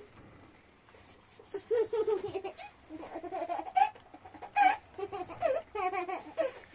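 A toddler laughing and babbling in a high voice, beginning about a second and a half in.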